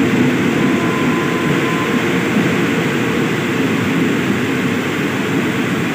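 Passenger train carriages rolling past close by, a steady rumble of steel wheels on the rails that eases slightly toward the end.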